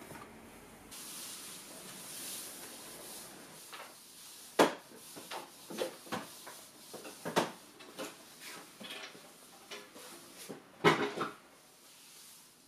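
A soft rustle of fabric, then a series of sharp knocks and clatters from a chair and a long-handled floor wiper being moved about on a wooden floor; the loudest knocks come about four and a half, seven and a half and eleven seconds in.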